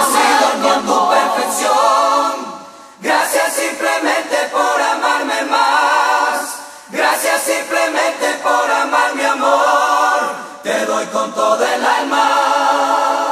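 A choir of layered voices singing sustained harmonies in four long phrases, with brief breaks between them.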